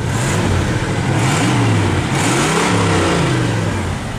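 Pontiac Grand Prix 305 V8 engine revved up and let back down twice, running on all cylinders again after a misfire from a burned spark plug wire on the second cylinder, which had been lying against the exhaust manifold.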